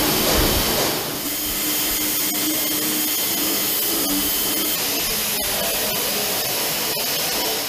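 Handheld pneumatic air tool running steadily on aluminium aircraft skin: a continuous loud rushing hiss of air with a faint high whine.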